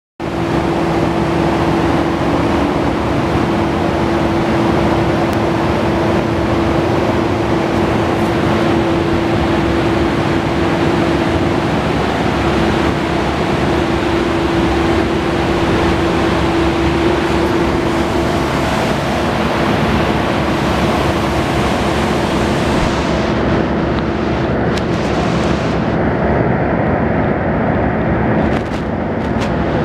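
BMW K1200S inline-four engine idling steadily, a constant even hum with a steady whine over it. The higher hiss thins out about three-quarters of the way through.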